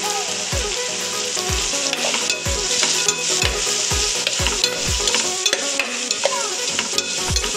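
Chopped onions, tomatoes and ground spices sizzling in hot oil in a pot while a spatula stirs and scrapes them round. Under it runs a steady beat of low thumps, about two a second.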